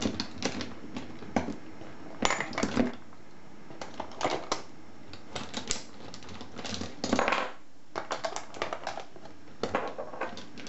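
Metal lock cylinders clattering and clinking against each other as they are put back into a box by hand: a racket of many irregular knocks, with louder clusters about two seconds in, around seven seconds and near the end.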